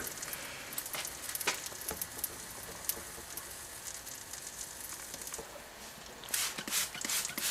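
The melted plastic of a microwaved Sony headset radio crackling and sizzling after catching fire. Faint scattered crackles come over a hiss, turning quicker and louder about six seconds in.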